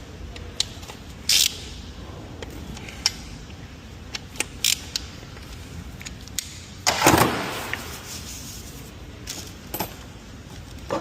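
Metal tools and parts being handled: scattered sharp clicks and clinks, with one louder clattering clank about seven seconds in.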